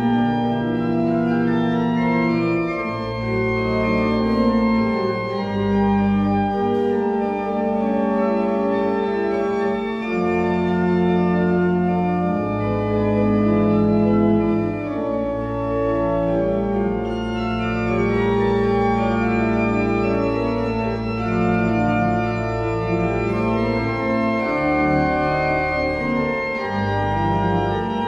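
Church organ playing sustained chords over long held bass notes that change every few seconds.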